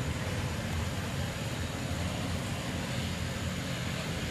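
Steady low rumbling background noise with an even hiss over it and no distinct events.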